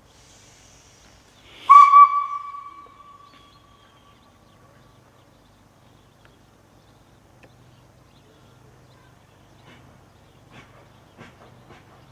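A short, loud whistle blast about two seconds in: one steady high note that starts with two quick peaks and fades away over the next few seconds. Faint clicks and knocks near the end.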